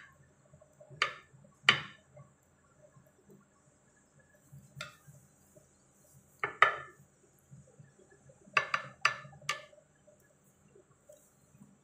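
Metal kitchen tongs clinking against a baking dish and a plate while spinach leaves are placed around roast chicken: single sharp clinks, with a quick run of three near the end.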